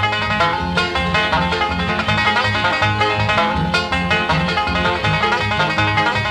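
Background bluegrass music with a fast-picked banjo and a steady bass beat.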